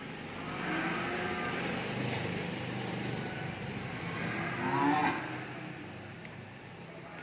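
Cattle mooing: a long moo about a second in, then a louder moo about five seconds in.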